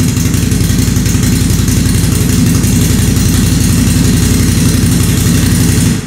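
A 2019 Can-Am Outlander 570 XMR's Rotax 570 V-twin idling steadily through its stock exhaust muffler.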